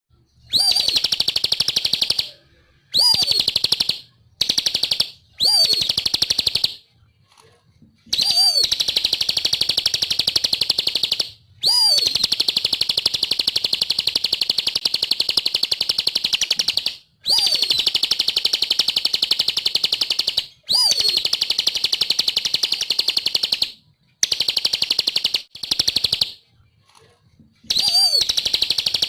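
Bar-winged prinia (ciblek) singing in repeated bursts of a very fast, high trill. Each burst lasts from under a second to about five seconds and opens with a short upswept note, with brief pauses between bursts.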